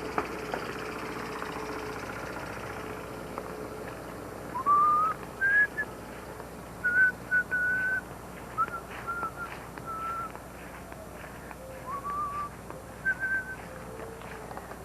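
Whistling: short, clear whistled notes in small irregular groups, some sliding upward and some held, starting a few seconds in over a steady low hum.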